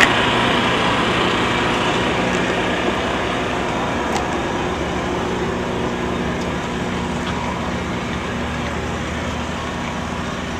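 A steady low mechanical rumble with a faint hum, like a motor vehicle running, easing slightly in level toward the end.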